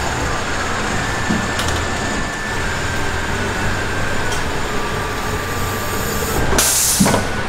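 Scissor-type car lift lowering a car, running with a steady mechanical hum and a faint whine. A short loud hiss comes near the end as it settles.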